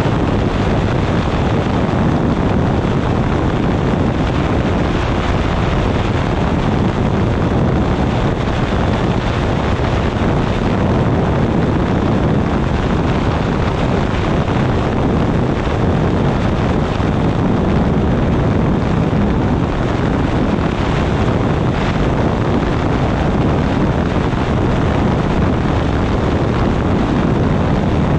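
Steady wind rush buffeting the microphone over the drone of a weight-shift microlight trike's engine and pusher propeller in level cruising flight.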